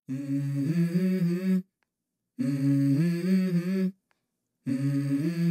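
A voice humming a short melody in three phrases of about a second and a half each, the pitch stepping up and down, with dead silence between them.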